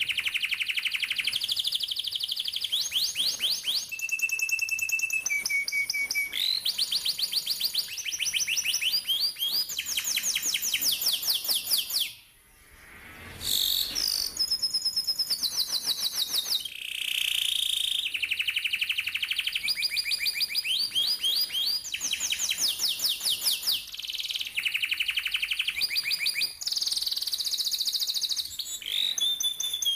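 Domestic canary singing long rolling trills of fast repeated notes, switching from one tour to the next every second or two. There is a brief break about twelve seconds in.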